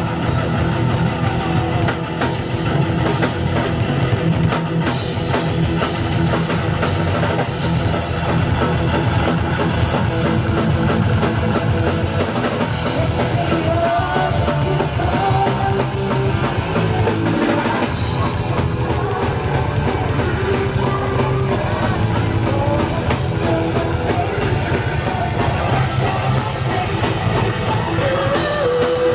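Heavy metal band playing live: drum kit, electric guitars and bass at full volume.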